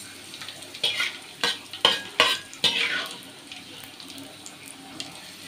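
Hot fried teri Medan anchovies scraped off a metal spatula and pan onto raw sambal ingredients: several sharp scrapes and knocks in the first three seconds, each with a short sizzle, then a faint steady sizzle.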